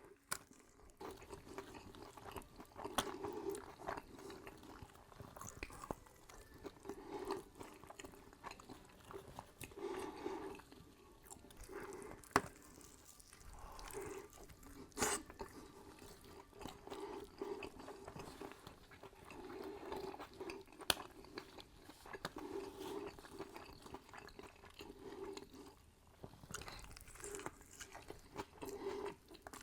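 A person chewing and biting food close to the microphone, soft irregular chewing throughout with a few sharp crunchy clicks.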